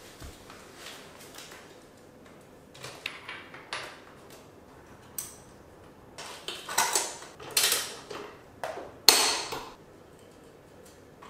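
Hand tools and metal motorcycle parts clinking and clattering: a few light clicks, then three louder rattling clatters in the second half, the last the loudest.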